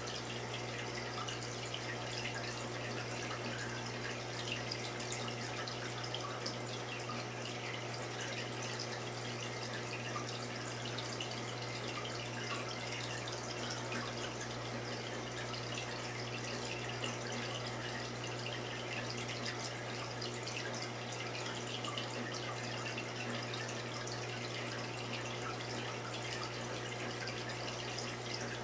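Saltwater reef aquarium running: water trickling and bubbling in continuous small irregular drips, over a steady low hum from its pumps.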